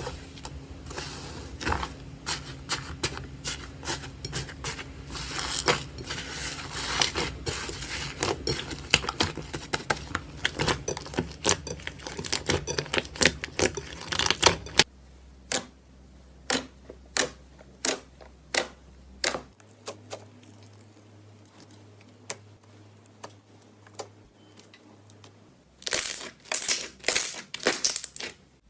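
Slime being squeezed, pressed and mixed by hand, giving a stream of sticky clicks, pops and crackles. The clicks are dense for the first half, come more sparsely after about fifteen seconds, and a loud burst of crackling comes near the end.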